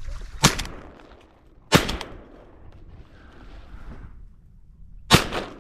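Three shots from a 28-gauge shotgun, the first two about 1.3 s apart and the third about 3.5 s later, each trailing off briefly.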